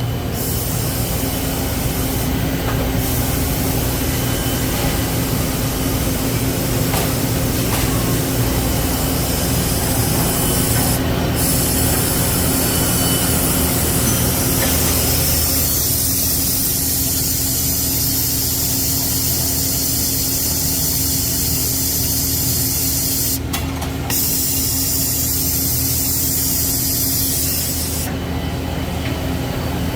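Citizen K16E CNC Swiss-type lathe running a machining cycle dry, with no coolant. A steady machine hum sits under a high hiss that drops out briefly a few times, and the sound shifts about halfway through as the cycle moves on.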